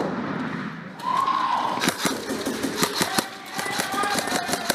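Airsoft guns firing: scattered sharp cracks of shots at an uneven pace, with distant voices calling between them.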